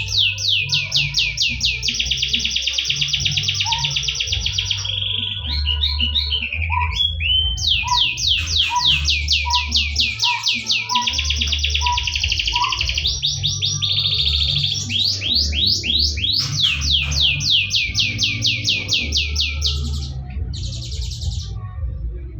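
Domestic canary song: long, rapid trills of repeated high notes, changing to a new trill every few seconds with brief gaps. A low, steady background bass runs underneath.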